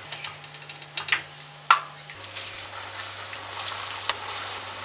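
Hot oil sizzling as moong dal vadas deep-fry in a pan, with a few light clicks and one sharp click in the first half. The sizzling turns louder and busier a little past halfway, with a fresh batch bubbling in the oil.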